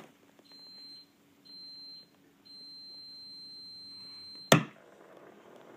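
A high-pitched beep sounds twice briefly and then once for about two seconds, cut off by a loud click as the Bell & Howell 1680 16mm projector's power switch is pressed, after which the projector's motor and fan start running with a steady whirr.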